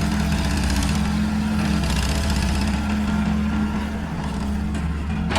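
Excavator's diesel engine running steadily at a constant speed.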